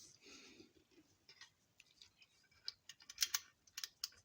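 Light clicks and scrapes of small parts being handled on a 1/24 scale diecast model car as a fitted door is worked at, with a small cluster of clicks about three seconds in.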